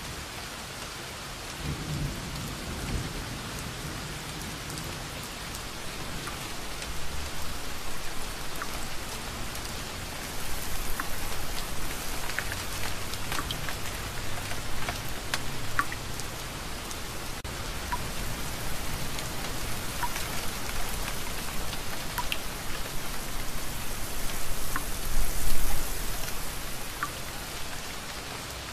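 Steady rain with thunder rolling in the distance, a low rumble about two seconds in and a louder one near the end. Single drops tick sharply over the hiss.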